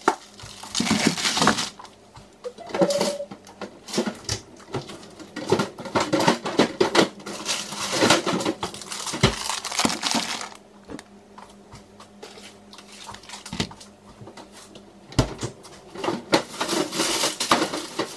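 Plastic food packaging rustling and crinkling as packets are handled, with light knocks of packets and tubs being set down on a kitchen worktop.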